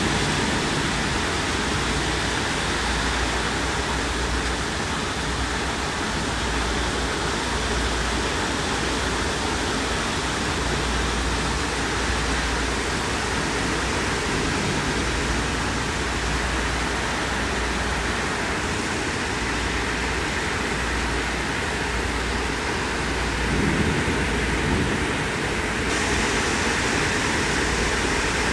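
Steady heavy rain falling, an even hiss that holds at one level, with a slight swell about three-quarters of the way through.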